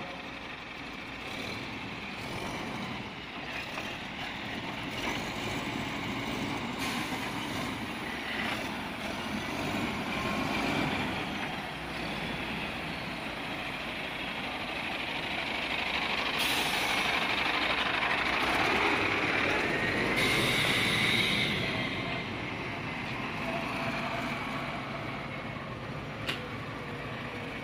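Old six-wheel timber truck's engine running as the truck drives slowly, growing louder for several seconds past the middle, with a couple of short hisses about two-thirds of the way through.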